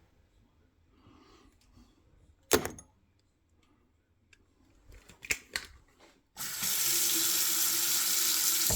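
A few sharp knocks and clicks, then a tap is opened about six seconds in and water runs from it in a steady, loud rush.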